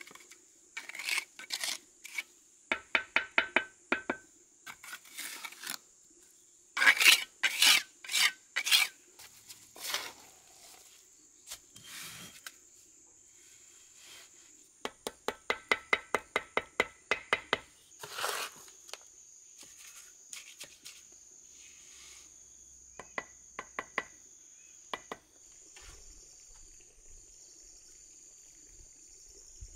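Steel trowel scraping wet mortar and tapping on fired clay bricks as they are laid and knocked into place, in quick runs of ringing taps with scrapes between. A steady high insect drone runs underneath.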